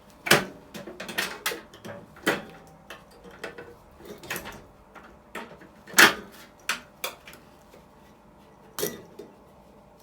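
Spade connectors being pulled off terminals inside a microwave oven: irregular sharp clicks and light metallic clatters, the loudest about a third of a second in and again around six seconds.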